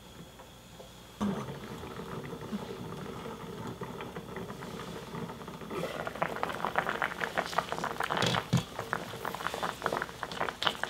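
Pot of radish chunks boiling in rice-rinsing water at medium heat, the radish being parboiled until just tender. The bubbling is muffled under a glass lid at first, then turns into a louder, dense crackle of popping bubbles once the lid is lifted about six seconds in.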